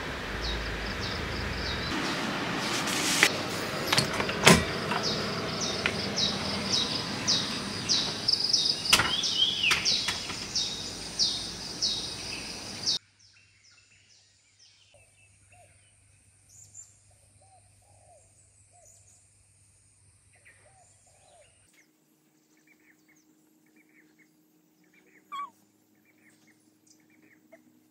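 Rainforest birds chirping in quick, repeated high calls over a steady outdoor hiss, with a few sharp knocks. About halfway through the sound cuts off abruptly to near quiet, with only faint scattered bird calls and a faint low hum near the end.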